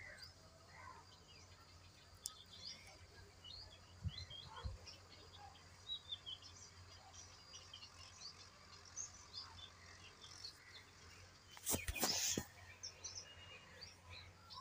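Faint small birds chirping in the background. There are a couple of low thumps about four seconds in and a brief louder rustling noise near the end.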